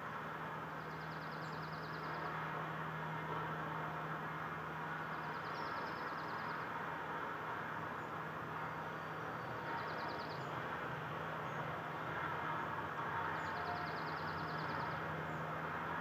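Steady motor-vehicle hum and rush. Over it a small bird gives a short, fast, high trill four times.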